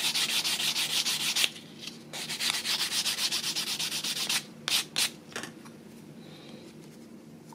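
Blade scraping the edge of a plastic model-kit part clean, in rapid, even back-and-forth strokes. The scraping breaks off briefly about one and a half seconds in, runs on to about four seconds, then gives a few single strokes before it quiets.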